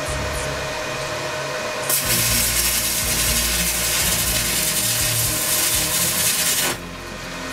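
Stick (MMA) welding arc crackling and hissing. It strikes about two seconds in, burns steadily for about five seconds, and cuts off abruptly.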